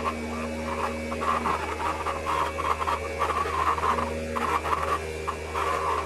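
Small DC motor and fan of a homemade plastic-bottle vacuum cleaner running, a steady hum with an uneven whir over it as it sucks up scraps of paper.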